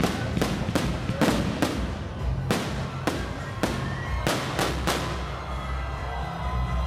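Aerial fireworks shells bursting in quick succession: about a dozen sharp bangs over the first five seconds, after which the bursts stop.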